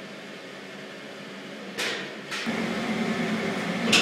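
Foundry noise during a pour of molten bronze into sand-buried moulds. A steady hiss, a brief burst of hissing about two seconds in, then from about two and a half seconds a louder steady hum.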